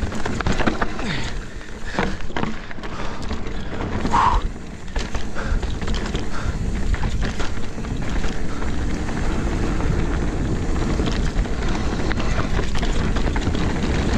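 Mountain bike riding fast downhill over rough trail, heard on an action-camera microphone. Wind rushes on the mic under steady tyre noise, with frequent rattles and knocks from the bike over rough ground and a short squeak about four seconds in.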